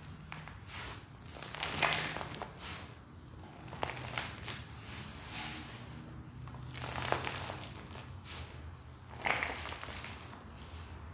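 Handfuls of crumbly grey powder squeezed, crumbled and let fall back onto a deep pile of powder: a soft crunching, sifting rustle that swells several times, each time a handful is crushed or dropped.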